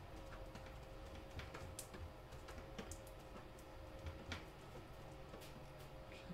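Faint, irregular light clicks and taps of a palette knife against the palette as two paints are mixed together, over a faint steady hum.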